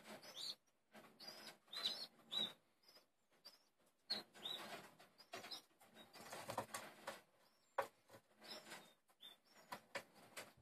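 Fledgling birds being hand-fed, giving short, faint begging chirps again and again, with wing flutters and rustling among them.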